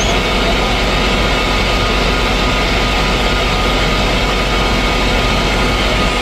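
A heavy engine running steadily under a loud, constant hiss.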